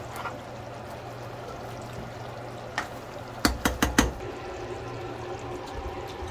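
Chicken leg curry simmering in a pan with a steady bubbling hiss while a spatula stirs the gravy; about three and a half seconds in, the spatula knocks sharply against the pan four times in quick succession, after a single knock just before.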